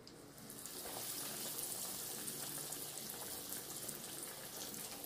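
Breaded chicken cordon bleu (chicken breast with ham and cheese, coated in egg, flour and breadcrumbs) sizzling as it goes into hot cooking oil in a pan. The sizzle starts within the first half second and holds steady.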